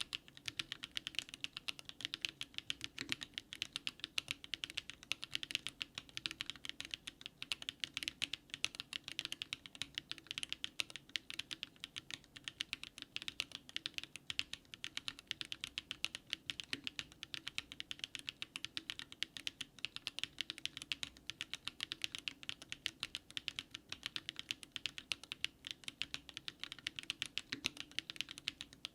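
Continuous typing on a DARING RUN DR-70F mechanical keyboard fitted with SW X HMX Catmint switches: a steady, dense run of keystrokes, many per second, without pause.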